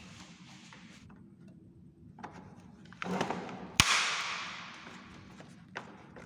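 Handling noise, then a single sharp snap just under four seconds in, followed by a hiss that fades away over about a second and a half.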